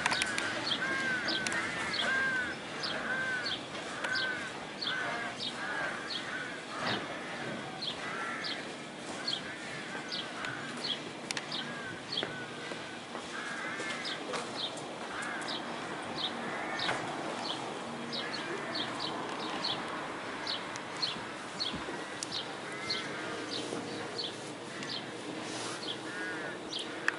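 Birds singing: a steady run of short high notes about twice a second, over repeated lower chirps.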